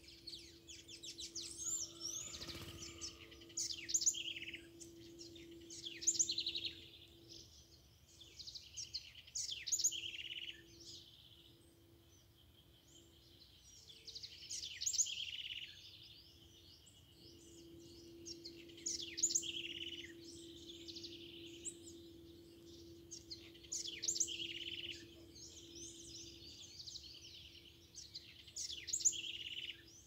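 Several songbirds singing and calling together: quick, sharp whistled notes that sweep up and down, coming in clusters every few seconds over a faint steady low hum.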